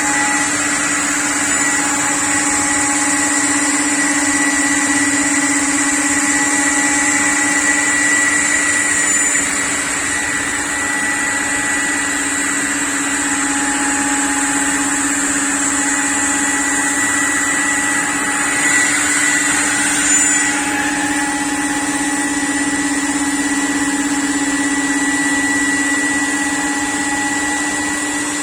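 CNC router cutting wardrobe panels, running steadily with a constant whine over a noisy rush, swelling slightly about two-thirds of the way through.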